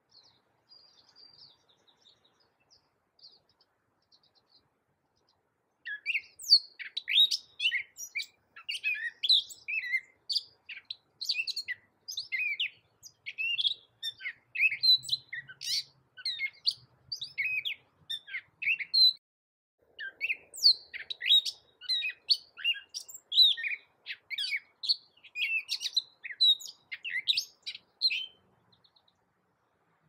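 Gray catbird singing: after a few faint soft notes, a long rambling run of varied, quickly changing short phrases starts about six seconds in. It breaks once briefly around the twenty-second mark, then carries on.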